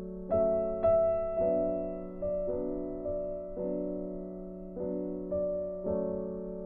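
Slow, gentle background piano music: single notes and chords struck about once a second, each ringing and fading out before the next.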